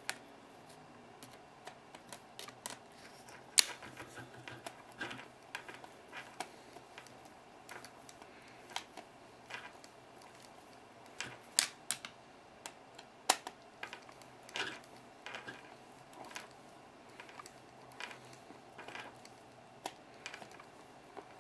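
Irregular small metallic clicks and taps from needle-nose vice grips and a screwdriver working a nut onto a bolt on an RC crawler's suspension link, with one sharper click about three and a half seconds in.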